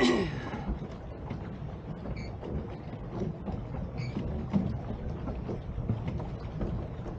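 Water sloshing and churning around a moving pedal boat. The sound is a steady wash with small irregular splashes, and there is a short vocal exclamation right at the start.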